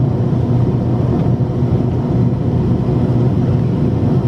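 Steady low drone of an MD-80 airliner's cabin during the climb after takeoff: the rear-mounted Pratt & Whitney JT8D turbofans and rushing airflow, heard from inside the cabin.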